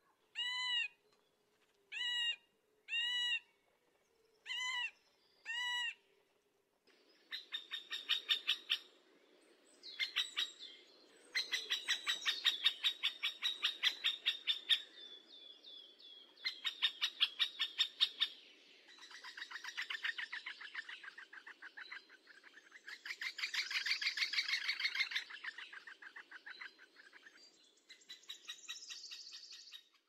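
Woodpecker calls: five separate, ringing, arched calls. About seven seconds in they give way to several long bouts of rapid rattling, chattering notes.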